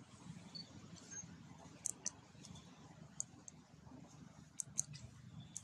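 Faint outdoor background with a low steady rumble and scattered sharp high clicks, several in quick pairs, starting about two seconds in.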